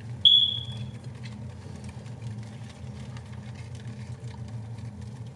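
A steady low hum throughout, with a single sharp high-pitched ping about a quarter second in that rings and fades within a second.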